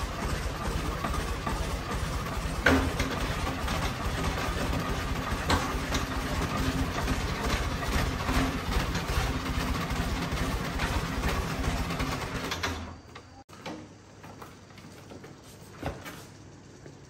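Iseki compact tractor's diesel engine running steadily, with a sharp knock about three seconds in, then shut off about thirteen seconds in; a few light clicks and knocks follow.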